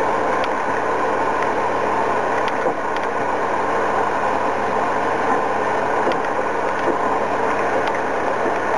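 Bell & Howell 16mm film projector running with a steady whir, with a few light clicks as plastic binder sleeves are handled.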